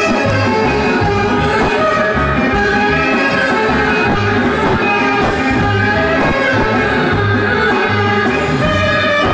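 Live Greek folk dance band playing a kagkelakia tune, amplified through PA speakers: an electronic keyboard carries a sustained melody over a steady, even beat.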